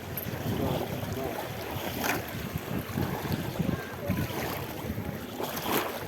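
Sea waves washing, with wind buffeting the microphone; louder surges of water about two seconds in and near the end.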